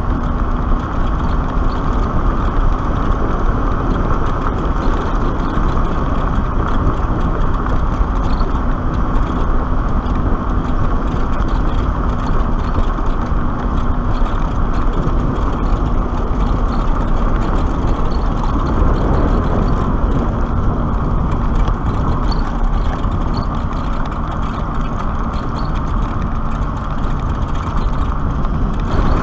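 Wind rushing over the microphone and tyre noise from a Black Tea Bonfire X electric motorcycle riding steadily along a paved lane, with a faint steady hum underneath.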